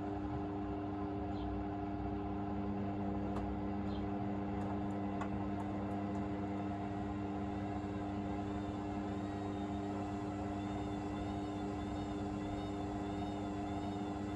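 Hoover VisionDynamic washing machine in its final 1000 rpm spin, drum and motor running at a steady speed with a constant whine. A few faint ticks come a few seconds in.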